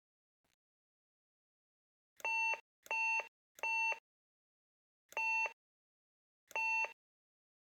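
Factorial apartment intercom panel sounding five short electronic beeps on one steady tone: three in quick succession, then two more with longer gaps between them.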